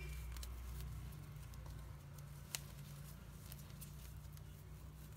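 Faint rustling and light clicks of a crochet hook drawing thick yarn through a cluster stitch, with one sharper click about halfway through, over a low steady hum.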